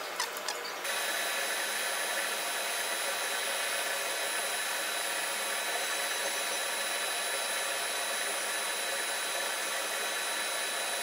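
A few light knocks as the nylon workpiece is set in the steel milling vise, then the vertical milling machine's spindle running steadily with a thin high whine while the piece is located in Y.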